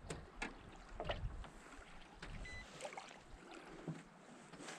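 Small waves lapping against the hull of a small boat, with light, irregular slaps and knocks.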